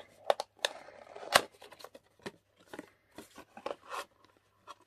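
Small black cardboard box being opened by hand: a run of sharp clicks, snaps and scrapes as the card flaps are worked apart, the loudest snap about a second and a half in.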